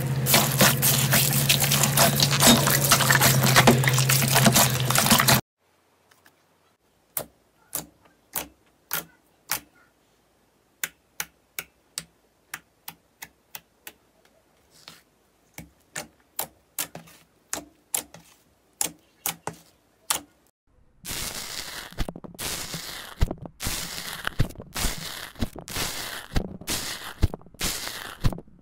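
Slime being handled in three parts. First comes a dense crackling as a hand squishes bead-filled slime, stopping about five seconds in. Then come separate sharp pops and clicks, one or two a second, as glossy slime is poked, followed from about twenty seconds on by quick crunching bursts, about two a second, as foam-textured slime is pressed.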